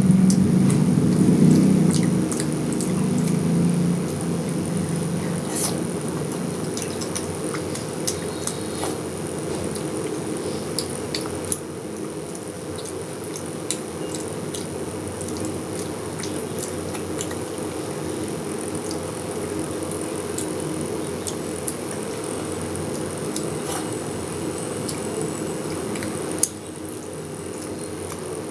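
Eating sounds: chewing and small wet clicks of rice and curry being handled, over a steady low background hum. A low rumble fades over the first four seconds.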